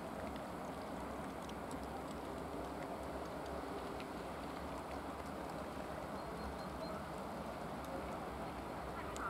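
TE33A diesel-electric locomotive, its GE Evolution V12 diesel running in a steady rumble as it rolls slowly in, with faint scattered clicks over it.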